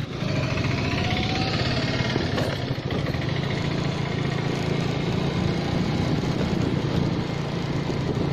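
Engine of a two-wheeler being ridden, running steadily, with a whine that rises in pitch over the first two seconds.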